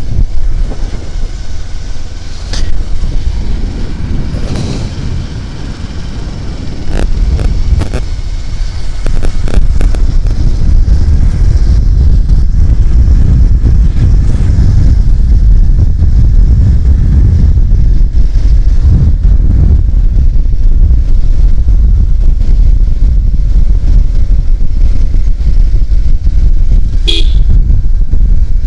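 Steady low rumble of a vehicle riding along a road, with wind buffeting the microphone; louder and more even from about a quarter of the way in. A short, sharp tone near the end.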